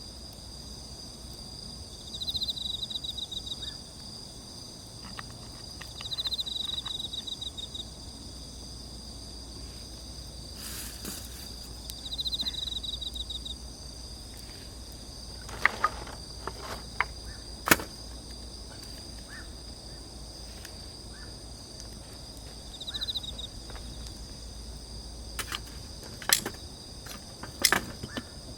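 Insects chirping in a steady high chorus, with a louder pulsing trill every few seconds. A wood campfire gives several sharp crackles and pops in the second half, the loudest of them about halfway through and near the end.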